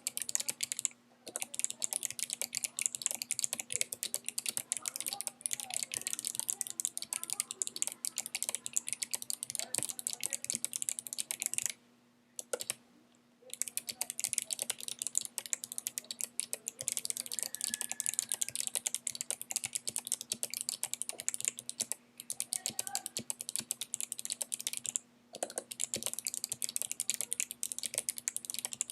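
Anne Pro 2 mechanical keyboard with clicky Kailh Box White switches being typed on quickly and continuously, with a few short pauses. The thick O-rings on the stems deaden the bottom-out, so what is heard is the crisp click of each click bar and the upstroke.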